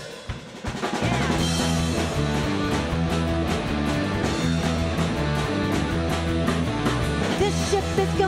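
Live rock band playing an instrumental intro on electric guitars and drum kit: a few drum hits, then the full band comes in loud about a second in and keeps going.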